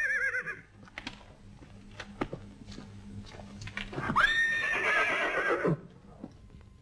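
A horse whinnying twice. The tail of one neigh comes right at the start, and a second, longer whinny comes about four seconds in: a high wavering cry that drops in pitch as it ends.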